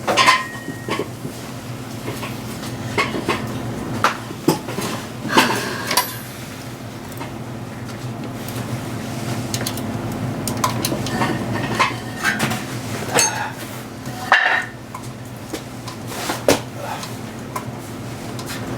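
Scattered metallic clinks and clicks of a wrench and inverted Torx socket being worked against a stubborn bell-housing bolt, over a steady low hum.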